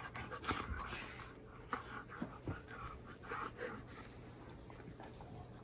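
A German Shepherd and a smaller dog play-fighting with open mouths: panting and a run of short, sudden sounds, quieter from about four seconds in.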